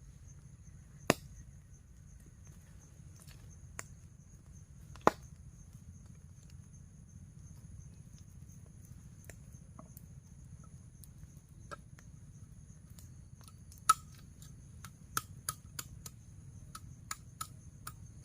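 Steady high-pitched insect drone at two pitches, broken by scattered sharp clicks or snaps. There are three loud ones well apart, then a quicker run of smaller clicks near the end.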